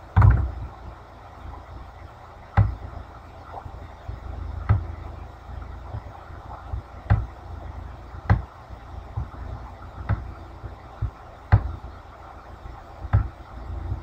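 Computer mouse clicks and keystrokes: single sharp clicks about every one to two seconds, over a steady low hum.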